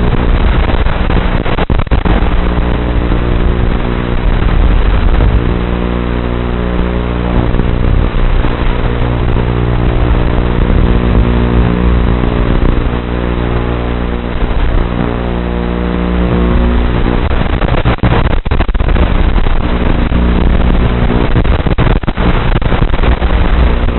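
A micro quadcopter's (tiny whoop's) motors and propellers whining close up, the pitch rising and falling as the throttle changes, heard through the drone's onboard camera microphone. The sound dips briefly a few times, about two seconds in and again near the end.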